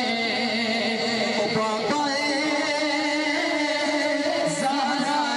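Naat sung by male voices into microphones and amplified through a PA system: long, wavering, ornamented melodic lines held without a pause.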